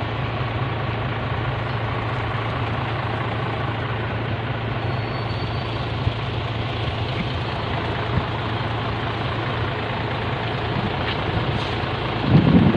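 Truck engine idling steadily. Near the end it gets louder for a moment with a low rumble.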